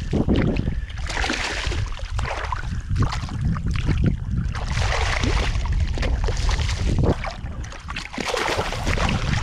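Wind buffeting the microphone in a steady low rumble, with bursts of water splashing as a hooked speckled trout thrashes at the surface beside the boat.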